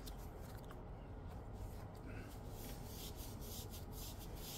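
Quiet room tone with a low hum and faint scattered rustling and rubbing noises, a few more of them near the end.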